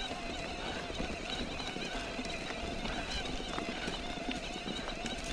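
Electric mountain bike being ridden over a rough trail: a steady rush of tyre and wind noise with scattered clicks and rattles, and a steady whine.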